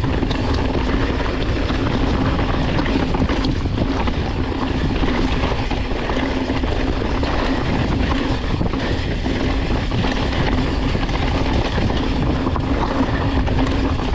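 Steady rush of wind buffeting the microphone over the rumble of mountain bike tyres rolling fast along a trail.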